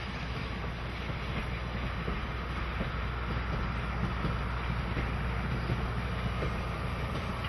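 Steam locomotive hauling a passenger train away: a steady rumble of the train rolling, with many small clicks from the wheels and cars, and wind noise on the microphone.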